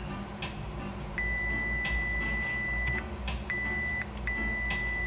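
Digital multimeter's continuity buzzer giving a steady high beep three times as the test probes touch the amplifier's power-supply MOSFET legs, the first beep long and the next short. The beeping means continuity: the MOSFET is shorting out between drain and source.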